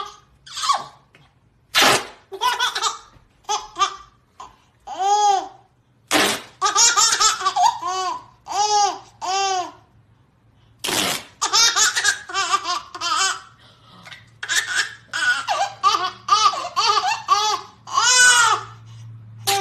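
A baby laughing in repeated high, squealing bursts. Duct tape is ripped off the roll three times, about four to five seconds apart, each rip a harsh tearing noise that sets off a new burst of laughter.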